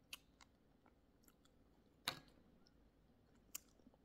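Close-up mouth sounds of sweet tamarind being chewed, with a few sharp clicks and smacks. The loudest comes about two seconds in.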